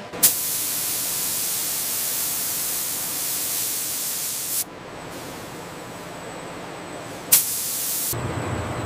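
Pressurised spray nozzles hissing as they mist a coating over a titanium sheet. The hiss starts with a sharp click, drops quieter a little past halfway, then comes back loud with another click near the end, where a low rumble joins in.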